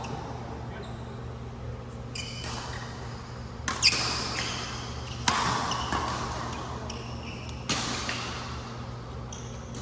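Badminton rally: racket strikes on the shuttlecock, three clear hits about a second and a half to two and a half seconds apart, each ringing in the hall's echo, with short high squeaks between them over a steady low hum.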